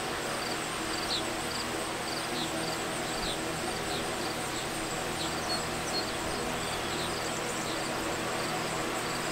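Insects chirping steadily in summer grass, with short high chirps repeating evenly.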